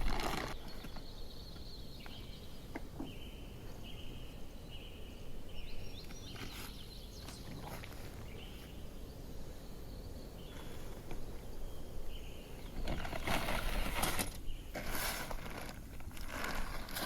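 Outdoor ambience with a steady low rumble and a few short high-pitched calls. Near the end come rustling, crinkling handling noises.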